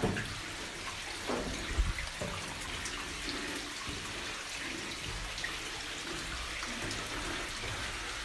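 Soft knocks and scuffs of someone climbing a wooden mine ladder, the louder ones in the first couple of seconds, over a steady hiss.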